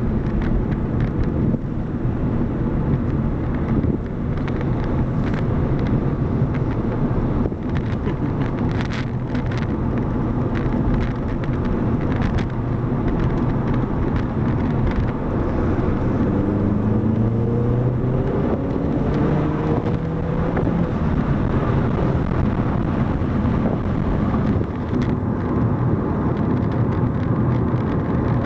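Car driving, with steady engine and road rumble; the engine note climbs about two-thirds of the way through as the car speeds up. A few light clicks come through before that.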